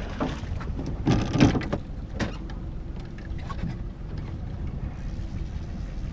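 A fishing boat's motor running steadily, a low rumble with a faint even hum, with a short loud rush of noise about a second in.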